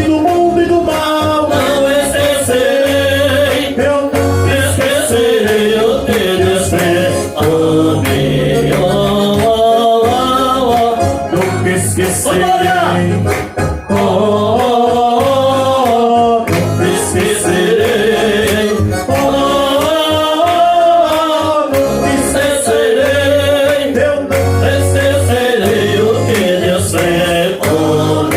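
A man singing a worship chorus in Portuguese to an electronic keyboard accompaniment with a steady beat.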